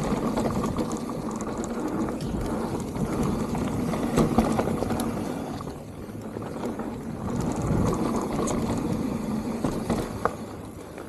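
Mountain bike rolling fast down a dry, dusty dirt trail: tyre noise on loose dirt with the rattle and clicking of the bike, easing off briefly about halfway through.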